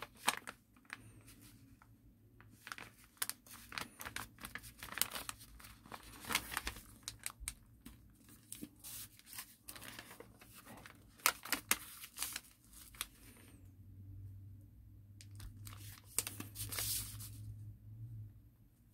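A sheet of origami paper being folded and creased by hand along its crease lines: intermittent crinkling and rustling with short crisp crackles of the paper. The paper goes briefly quieter before a longer rustle near the end.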